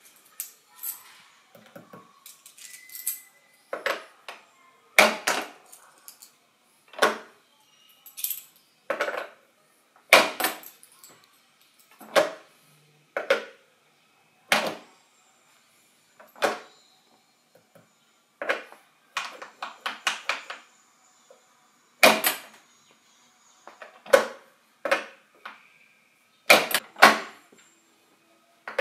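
Homemade PVC coin-eating box being worked over and over: sharp plastic clacks as its lever is pressed and its flap snaps open and shut, with coins clinking as they are swallowed. A click comes about every second or two, some in quick pairs.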